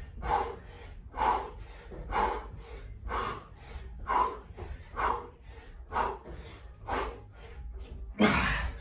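A man breathing hard through a set of push-ups: a short, forceful breath about once a second, in time with the reps, and a longer, louder gasp near the end.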